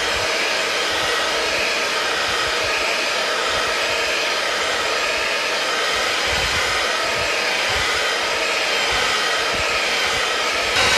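Electric hand mixer running steadily, its twin beaters whirring through thick chocolate muffin batter in a plastic bowl. It gets a little louder near the end.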